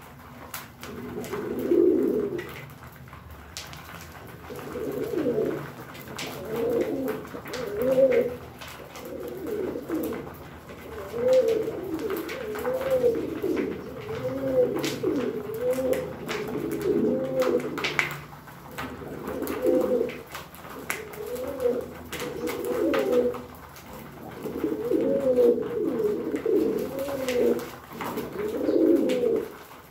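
Domestic pigeons cooing, many overlapping coos following one another almost without a break. Scattered light clicks of beaks pecking feed from a tray run through it.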